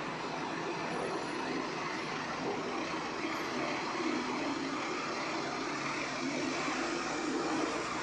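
Steady rush of dense city road traffic, an even, unbroken noise with no single vehicle standing out.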